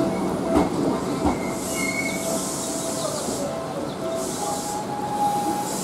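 Seibu 101 series electric train slowing to a stop at a platform: thin steady whining and squealing from the wheels and brakes, two sharp clacks over rail joints about half a second and a second in, and spells of high hissing.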